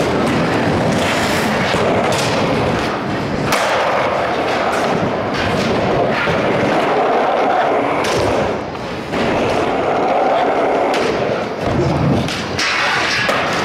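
Skateboard wheels rolling over wooden ramps with a steady rumble, broken by several sharp clacks and thuds of the board striking and landing.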